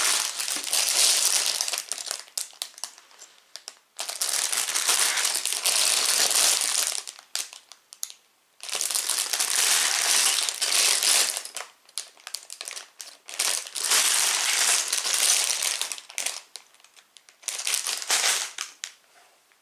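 Sealed plastic bags of Lego pieces crinkling loudly as they are picked up and handled, in about five bouts of a few seconds each with short quieter gaps and small clicks between.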